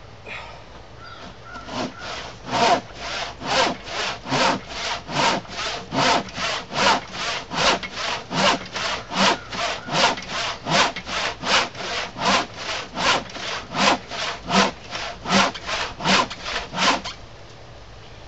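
Handsaw crosscutting through the end of a thick glued-up wooden workbench top, in steady strokes of about three a second. The strokes start lightly about a second and a half in and stop about a second before the end.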